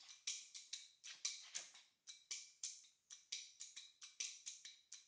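Faint, sharp metallic clicks with a brief high ring, coming in short runs of about three or four a second with small pauses between runs.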